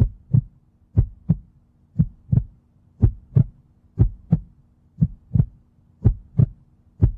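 Heartbeat sound effect: paired low thumps, lub-dub, repeating about once a second, over a faint steady hum.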